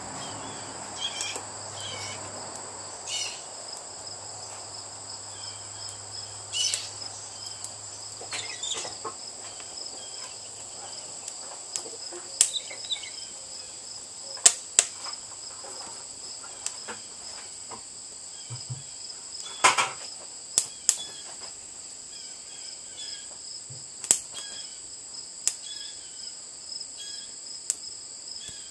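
Crickets chirring steadily, with irregular sharp pops and crackles from pine and oak wood shavings and slats burning in a steel charcoal retort. The louder pops come a few seconds apart.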